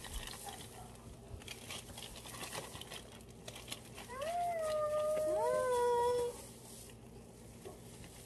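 Soft rustling of plastic bags and chicken being handled. About four seconds in comes a high, drawn-out wailing call that holds its pitch, then a second, lower call that overlaps its end; together they last about two seconds.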